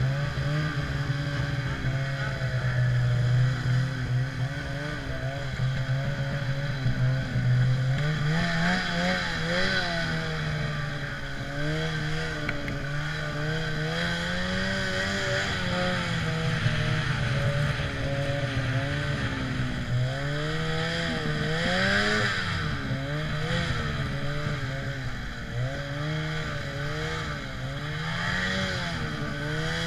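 Ski-Doo Summit snowmobile engine running under throttle. Its pitch holds steady for the first several seconds, then rises and falls again and again as the throttle is worked through deep powder, with a steady hiss over it.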